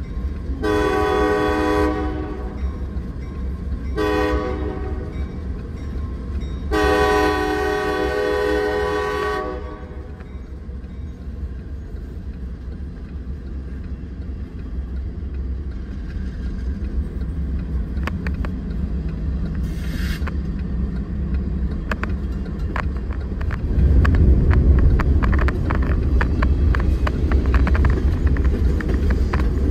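Diesel locomotive horn sounding a long blast, a short blast and a longer final blast, the closing part of a grade-crossing signal. Then the train's steady low rumble, which grows louder about three-quarters of the way through.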